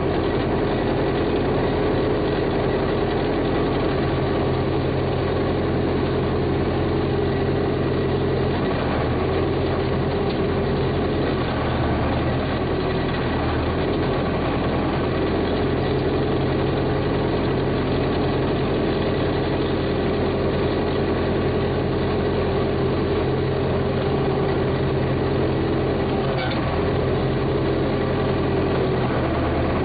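Backhoe loader's engine running steadily at a constant speed, with a low even hum and only small shifts in its tone.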